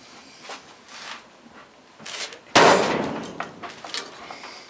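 Sheet-metal casing of an old furnace being pulled apart: a few light knocks, then a loud bang about two and a half seconds in that dies away over about a second, followed by smaller clanks.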